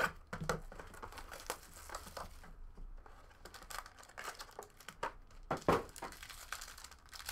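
Hands opening a trading-card hobby box: cardboard sliding and packaging crinkling and tearing, with scattered clicks and taps and a sharper snap about five and a half seconds in.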